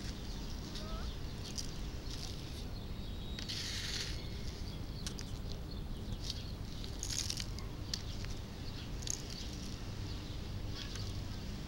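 Soft scrapes and rustles of dirt being scooped with a plastic toy loader and poured into a plastic toy dump truck, in short bursts with faint clicks between, over a steady low outdoor rumble.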